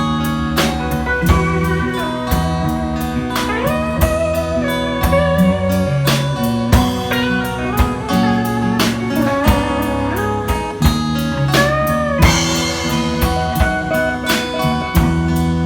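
Acoustic band playing an instrumental passage: guitars holding chords over a steady percussive beat, with a lead line that bends and wavers in pitch.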